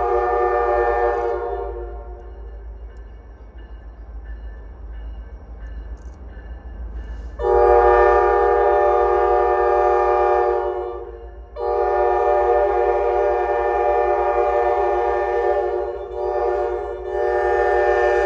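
Diesel freight locomotive's air horn sounding a chord in long blasts, with a short blast just before the last long one, the pattern blown for a grade crossing. A low rumble runs underneath, and the first blast ends soon after the start, leaving a quieter gap of several seconds.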